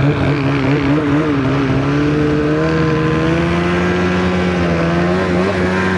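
Snowmobile engine running at fairly steady revs, its pitch wavering slightly up and down. The machine is a 2023 Polaris RMK Khaos Boost, a turbocharged two-stroke fitted with an SLP Competition exhaust can.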